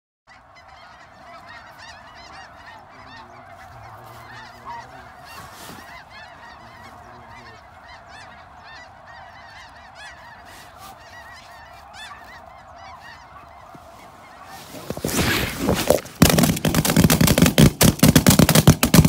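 A large flock of snow geese calling overhead, a steady chorus of many overlapping honks. About fifteen seconds in the calling swells much louder as the flock comes in close, and in the last few seconds several shotguns open fire in a rapid volley.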